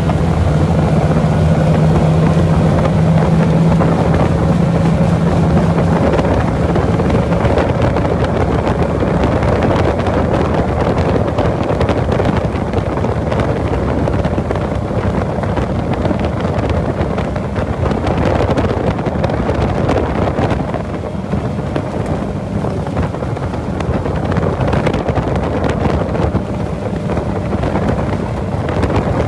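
Tiller-steered outboard motor on a small aluminium boat running flat out on a top-speed run, the boat picking up speed. Its steady engine hum is plain for the first several seconds, then is largely covered by wind noise on the microphone.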